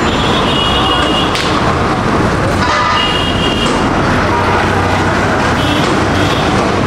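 Steady road traffic noise, with a few short vehicle horn toots.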